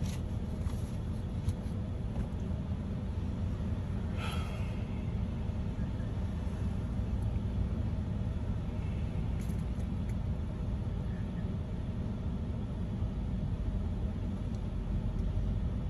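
Stopped car idling, a steady low rumble heard inside the cabin, with one short, faint sound about four seconds in.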